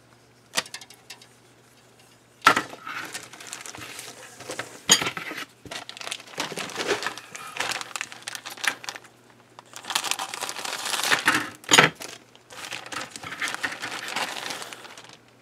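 Clear plastic kit bag crinkling and rustling in uneven bursts as a sprue of plastic model parts is handled inside it, with a couple of sharp clicks. It starts about two and a half seconds in, after a near-quiet start.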